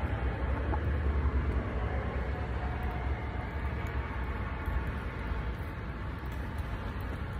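Strong wind buffeting the microphone: a low, uneven rumble over a steady hiss.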